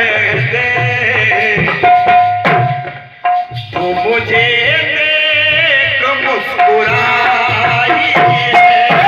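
Harmonium playing held notes over a hand-drum rhythm, a ghazal accompaniment in a jawabi kirtan; the music drops out briefly about three seconds in, then resumes.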